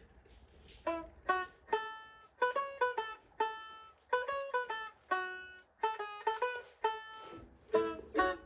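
Music: a bright melody of single plucked-string notes, each struck sharply and then fading. It begins about a second in, after a near-quiet start.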